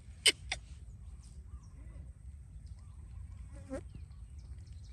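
A baby macaque gives one short squeak about three and a half seconds in, over a steady low wind rumble on the microphone. Two sharp clicks come just after the start.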